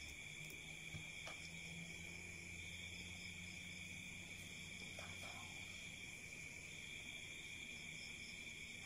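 Faint, steady chirring of insects: a continuous high trill at several pitches at once, with a few soft ticks from the work in the foreground.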